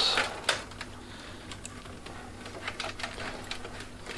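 Scattered light clicks and rustling of hands handling SATA and power cables and plastic parts inside a computer case.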